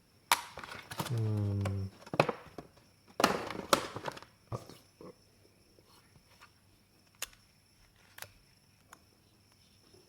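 Handling noise from unpacking a boxed LED bulb and remote: scattered knocks and clicks, with a louder scraping rustle about three seconds in.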